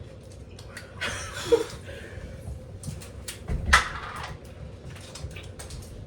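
A person taking two short, noisy breaths through the mouth, about a second in and again near four seconds in, reacting to the burning heat of an extremely hot chip. Small clicks and handling noises are scattered between them.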